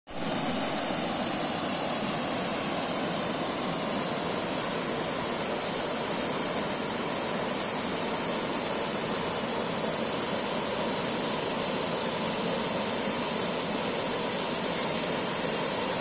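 Small waterfall on a stream, white water spilling over low rock ledges into a pool: a steady rushing of water.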